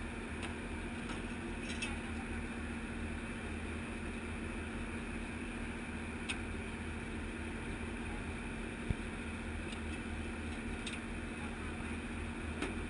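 Steady low hum of a boat's engine running at a constant speed, with a few faint clicks and a single sharp knock about nine seconds in.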